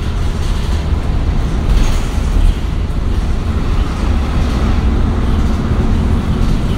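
Cummins ISL9 diesel engine and drivetrain of a 2015 Nova Bus LFS city bus, heard from inside the passenger cabin, running with a steady low drone.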